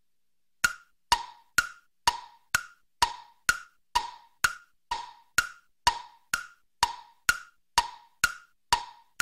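Ticking-clock sound effect: a steady run of sharp wooden ticks, about two a second, starting after a moment of silence. It marks time passing.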